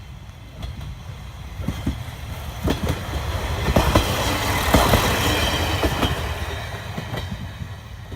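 JR Shikoku KiHa 32 single-car diesel railcar passing, its wheels clacking over the rail joints. It grows louder for the first few seconds, is loudest about halfway through, and then fades away.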